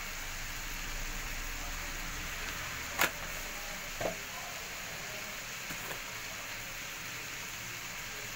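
Onion masala frying in oil in a frying pan, a steady sizzle, with a sharp click about three seconds in and a softer knock a second later.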